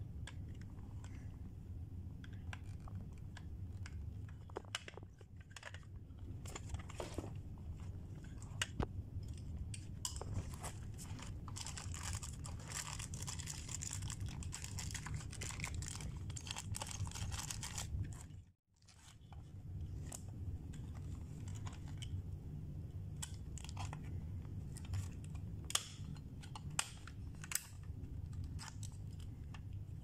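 Small plastic bag of screws crinkling as it is handled in the middle of the stretch, among scattered clicks and taps of a screwdriver and the plastic housing of a Simplex manual call point, over a steady low hum. The sound cuts out for a moment about two-thirds of the way through.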